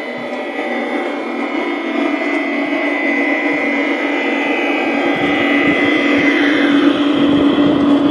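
LGB G-scale model of a Rhaetian Railway electric locomotive running toward the microphone on brass garden track: a steady motor whine and hum growing louder, with wheels clattering on the track from about five seconds in as it comes close.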